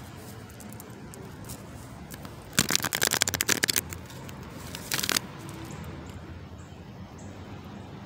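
A deck of cards being shuffled: a rapid run of card clicks lasting about a second, then a second short run a little later.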